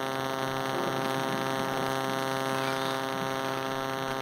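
Steady electrical hum with a stack of even overtones, unchanging throughout.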